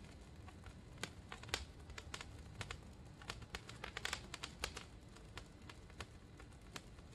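Small handheld sparkler-type firework burning with faint, irregular crackles and pops, a denser flurry about four seconds in.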